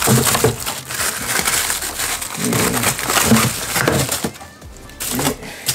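Plastic bags of frozen meat crinkling and crunching as a hand rummages through a freezer drawer, in a steady run of small crackles and rustles.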